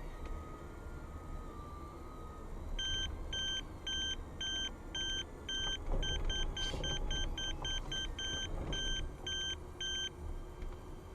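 Car running with a low rumble. Over it, an electronic beeper sounds a string of short, even-pitched beeps for about seven seconds, closer together in the middle and slower near the end.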